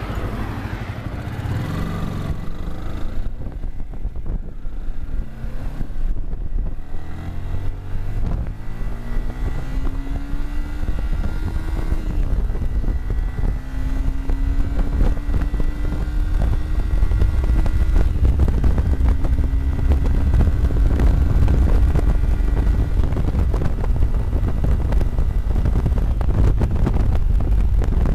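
Sport motorcycle engine accelerating up through the gears, its pitch climbing and then dropping at each upshift, twice partway through. Wind buffeting on the tank-mounted microphone builds as the speed rises and takes over the low end in the later part.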